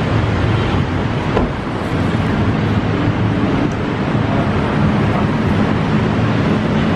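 Steady, loud background rumble with a constant low hum underneath and no distinct events.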